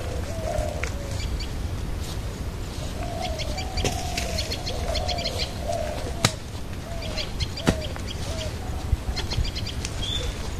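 Birds calling around a garden: a run of short, low cooing notes repeated throughout, with bursts of high chirping over them. Two sharp knocks stand out, about six and seven and a half seconds in.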